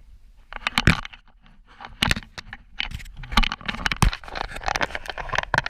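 Metal hand tools and loose metal parts clinking, rattling and scraping: a run of irregular sharp knocks with clattering in between, starting about half a second in.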